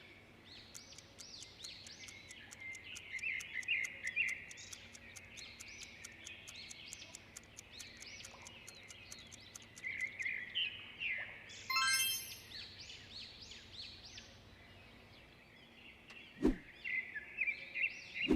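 Birdsong, with many short chirps and twitters throughout, over a fast, even ticking of about four ticks a second that stops about ten seconds in. A bright chime rings about twelve seconds in, and there is a single sharp click near the end.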